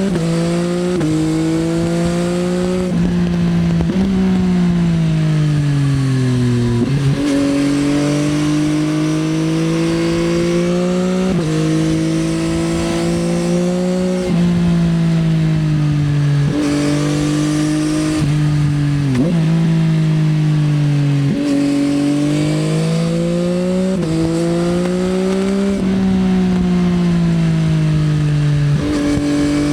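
2024 Yamaha XSR900's inline-three engine through an Akrapovič Racing Line exhaust, ridden hard through the gears. The engine note climbs and falls with the throttle and jumps abruptly in pitch at each gear change, about a dozen times.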